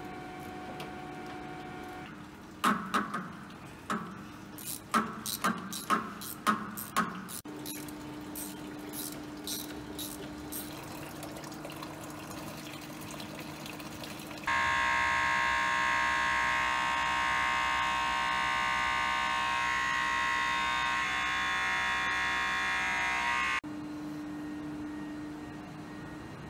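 A run of sharp clicks and knocks from parts being handled. About halfway through, engine coolant pours from under the truck into a plastic bucket, a steady splashing stream that lasts about nine seconds and cuts off suddenly.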